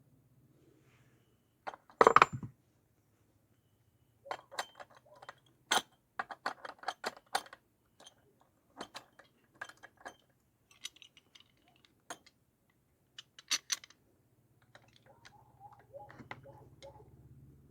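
Small metal tools and parts being handled: a string of irregular clinks and clicks, the loudest about two seconds in and a quick run of them from about four to seven seconds.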